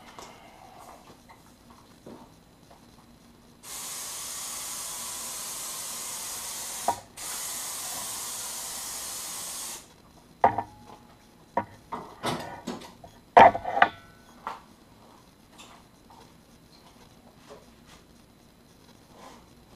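Compressed-air spray gun spraying activator over hydrographic film floating on a dip tank: two steady hissing bursts of about three seconds each, with a short break between. Then several sharp knocks and clatters, the loudest louder than the spraying.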